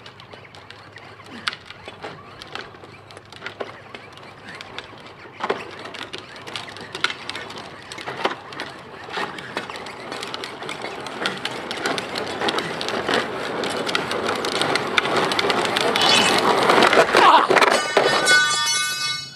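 Hard plastic toy-truck wheels strapped to a man's feet rolling and rattling down an asphalt slope, with many small clicks and knocks, growing louder as they come closer, then a crash as he falls on the pavement near the end. Just after the fall a steady high-pitched tone sounds briefly.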